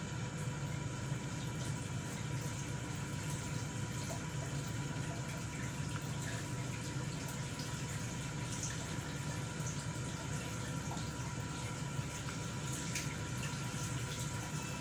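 Steady rush of running water, even and unbroken, with a faint steady electrical tone beneath it.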